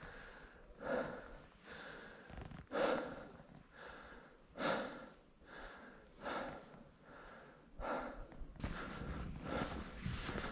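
A person breathing hard and out of breath from climbing at high altitude: heavy exhalations about every second and a half to two seconds, with quieter inhalations between them. Near the end a steadier rustling noise comes in.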